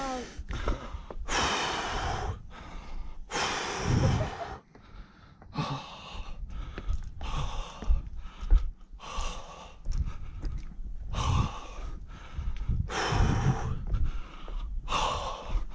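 A person breathing hard right at the microphone, about a dozen loud breaths in and out, one every second or so.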